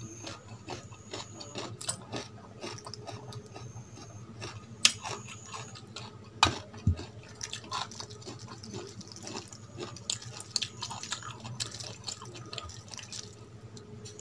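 Cooked rice being mixed with curry gravy by hand on a steel plate: soft wet squishing and irregular small clicks, with two sharper clicks about five seconds in and a second and a half later.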